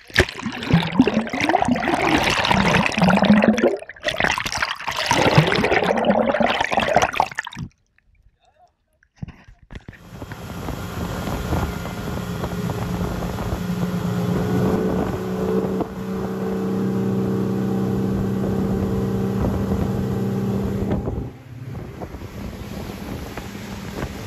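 Water splashing and churning close to the microphone for the first seven seconds or so. After a short gap, a Yamaha 300 four-stroke V6 outboard motor runs steadily at speed with a steady drone, easing off about three seconds before the end.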